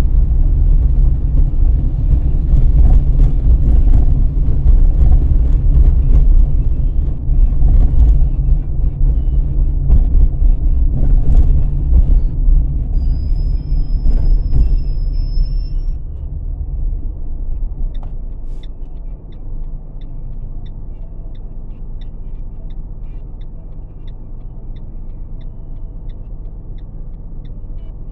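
Car driving noise heard from inside the cabin: a loud low rumble of engine and tyres that drops to a quieter steady idle partway through as the car comes to a stop. A thin high squeal sounds briefly while it slows. After the stop, a light ticking of about three ticks every two seconds runs on.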